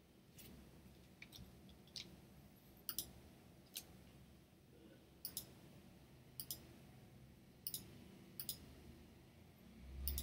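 Computer mouse clicks, about a dozen sharp clicks scattered at irregular intervals, several coming in quick pairs.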